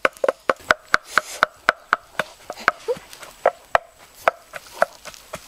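Sharp knocking on a tree trunk, a steady beat of about four knocks a second that slows and becomes irregular after about three seconds.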